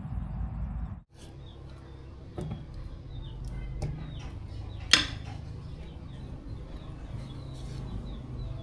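Small birds chirping over a steady low hum, with one sharp clank about five seconds in.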